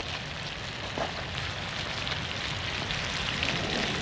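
Venison with tomato, peppers and onion sizzling steadily in a cast-iron skillet over an open wood fire.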